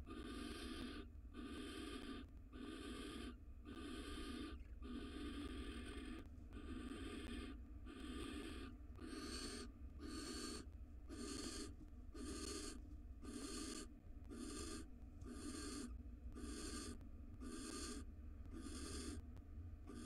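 Barn owl giving a steady series of rasping hiss calls, the 'snoring' food-begging call. They come about once a second at first and a little faster in the second half.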